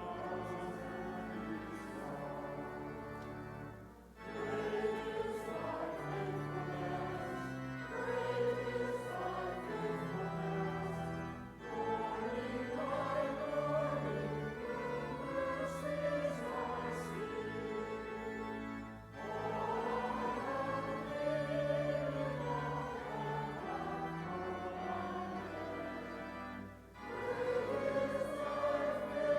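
A hymn sung by a group of voices with pipe-organ-style accompaniment, in sung lines separated by brief breaths every seven or eight seconds.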